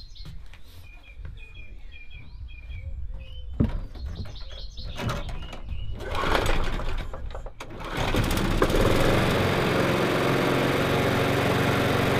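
Birds chirping, then a Mountfield petrol lawnmower pulled on its recoil starter a few times; the engine catches about eight seconds in and runs steadily. It is smoking as it burns off oil drawn in from the inlet, which filled when the mower was tipped on its side.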